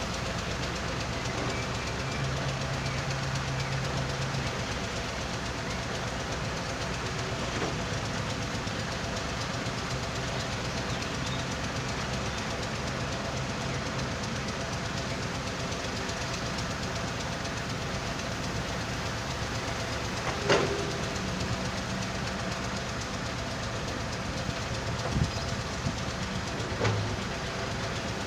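Heavy machinery running steadily: an excavator engine and a stone-and-sand screening machine. There is one sharp metallic clank about two-thirds of the way through and a couple of smaller knocks near the end.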